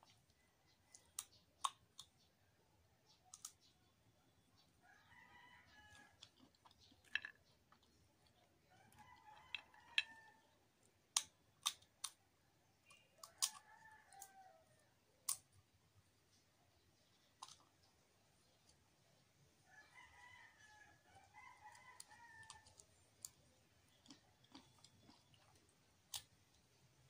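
Scattered sharp crunches of roasted in-shell peanuts being cracked and eaten. Four drawn-out pitched calls, each a couple of seconds long, are heard in the background.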